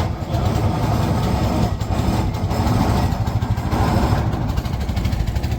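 Boat engine running steadily with a fast low chugging, carrying the boat across the river.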